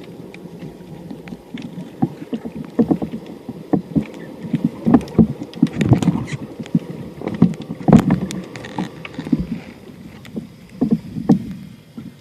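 Water sloshing and splashing, with irregular knocks and sharp clicks throughout.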